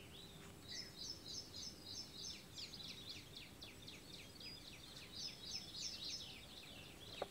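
Faint bird chirping: quick runs of short, high chirps, repeated several times over a low background.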